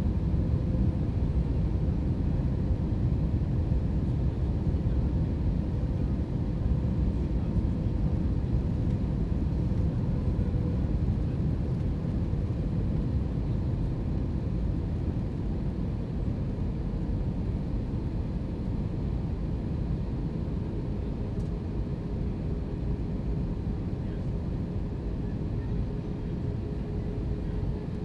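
Steady cabin noise inside an Airbus A321-231 airliner descending on approach: a deep, even rumble of airflow and its IAE V2500 engines, with a faint steady hum that drops a little in pitch past the middle as the noise eases slightly.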